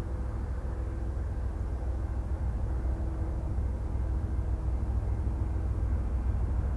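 BNSF freight train passing, its diesel locomotives running: a steady low rumble with a faint hum.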